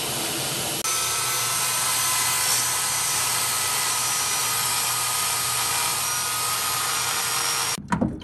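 Die grinder running steadily as it cuts a clearance notch into the steel front A-arm for the shock adjuster knob, a continuous high hiss that stops abruptly shortly before the end.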